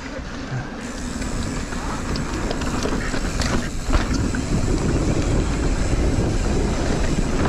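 Wind rushing over the microphone of a camera on a mountain bike descending a dirt fire road, mixed with the rolling noise of knobby tyres on dirt, building over the first couple of seconds as speed picks up. A few short clicks and rattles come from the bike about three to four seconds in.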